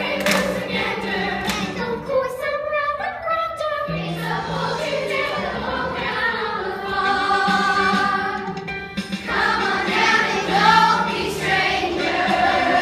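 A chorus of voices singing a musical-theatre number with instrumental accompaniment.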